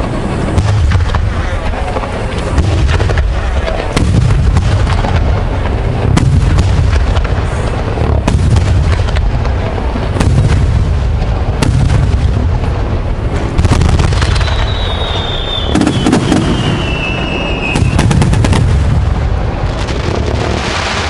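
Aerial fireworks bursting in rapid succession: deep overlapping booms with many sharp cracking reports. A high whistle falls steadily in pitch for a few seconds, starting about two-thirds of the way in.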